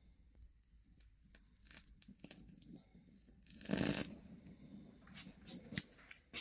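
Faint scattered clicks and light handling noise, with one short, louder rustling scrape about four seconds in.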